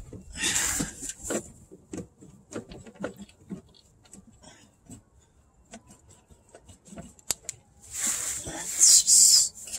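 Scattered metal clicks and knocks as a manual transmission is worked loose from the engine block on a transmission jack, then a loud scraping, rustling burst about eight seconds in.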